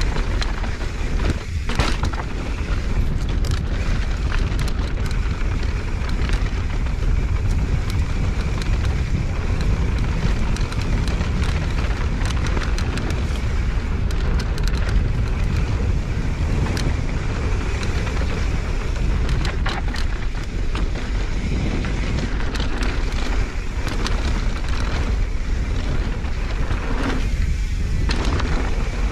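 Mountain bike rolling down a dirt singletrack: a steady low rumble of wind on the microphone, with the knobby tyres on dirt and many scattered clicks and rattles from the bike over the bumps.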